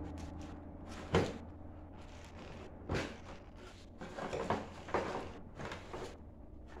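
Tools and parts knocking and clattering in a hard plastic tool case as they are handled: a sharp knock about a second in, another near three seconds, then a run of clicks and knocks around four to five seconds, over a steady low hum.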